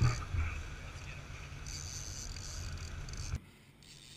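Low rumble of wind buffeting the camera microphone, with hiss, on a boat under way in rough seas. The rumble cuts off suddenly about three and a half seconds in.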